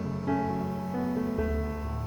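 Background music: soft piano notes.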